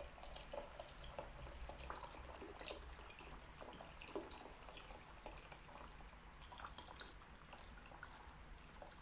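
Hot water poured in a thin, steady stream from a kettle into a steel pot of fried pepper paste, faintly splashing and trickling as the pot fills.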